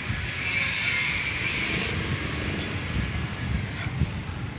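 Steady road noise while riding a mountain bike on a concrete street, with an irregular low rumble of wind on the phone's microphone.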